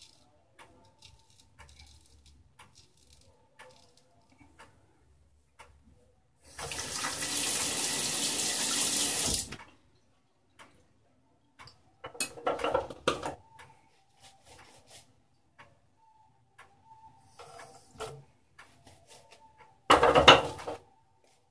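A bathroom tap runs into the sink for about three seconds, then water splashes at the sink in several short uneven bursts, the loudest near the end. A clock ticks faintly between them.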